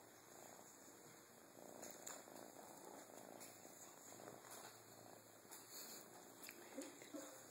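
Faint purring of a young domestic cat, a soft low rumble that swells and fades with its breaths.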